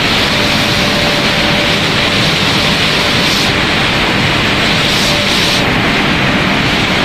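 Corn snack-pellet extrusion line with a twin-screw extruder running: a steady, loud, hiss-like machine noise with a faint steady hum underneath.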